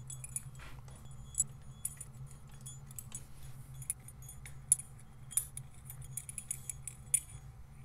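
Irregular small metallic clicks and clinks as the auto-advance unit of a Vincent Rapide's magneto is worked by hand onto the magneto spline and screw thread, with a low steady hum underneath.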